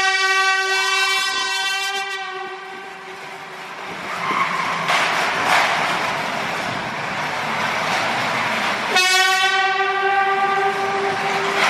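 Handheld compressed-air horn blasting one steady, piercing tone that fades away about three seconds in. After a stretch of noise with no tone, a second blast starts abruptly about nine seconds in and runs on.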